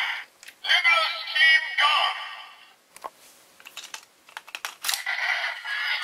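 Kamen Rider Build DX toy playing electronic voice and sound-effect audio through its small speaker in the first two seconds and again near the end. In between, a run of sharp plastic clicks as a Full Bottle is handled and set into the toy.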